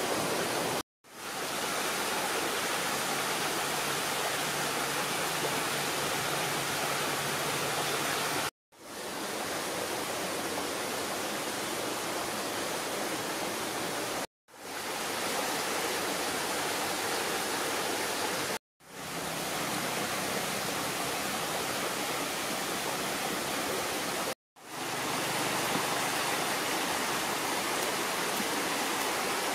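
Steady rush of flowing stream water, cut off five times by a brief silence that fades back in within about a second.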